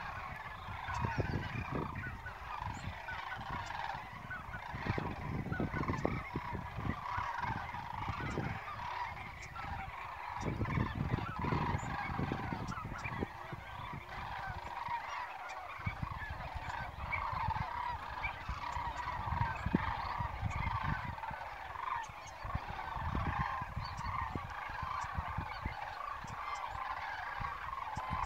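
A large flock of geese honking, a dense, continuous chorus of many overlapping calls. Irregular low rumbles of wind on the microphone run underneath.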